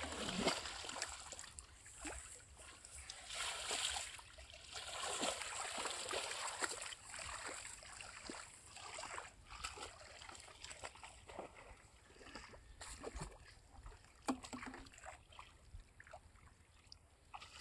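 Shallow water splashing and sloshing as a person wades and gropes by hand through a flooded rice paddy, in uneven bursts that thin out to scattered small splashes in the later part.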